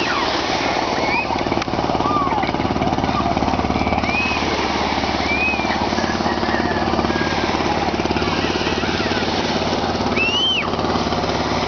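Engine of a bangka outrigger fishing boat running steadily with a rapid, even pulsing, with a few short high calls over it.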